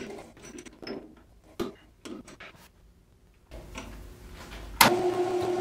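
Metal lathe motor hum cutting off, then a few scattered metallic clicks and knocks at the chuck and toolpost while the spindle is stopped. Near the end there is a low rumble, a sharp loud click, and the lathe's steady motor hum starting up again.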